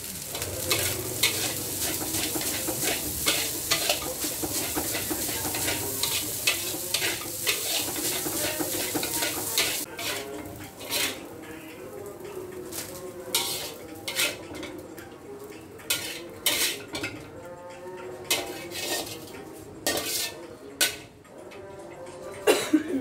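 Fried rice sizzling in a metal wok as a metal spatula stirs and scrapes it. After about ten seconds the sizzle fades, and the spatula's separate scrapes and knocks against the wok stand out as the rice is scooped out.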